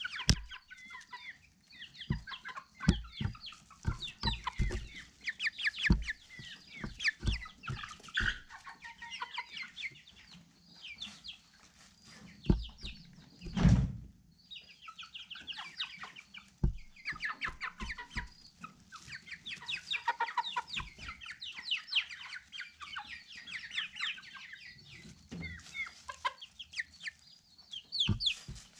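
Several chickens clucking and calling in short, rapidly repeated notes, with scattered dull thumps among them and a louder thump about fourteen seconds in.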